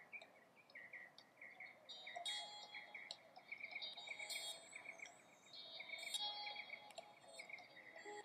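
Faint outdoor birdsong and insect chirping: a steady run of short chirps about three a second, with higher bird calls coming in over it at intervals.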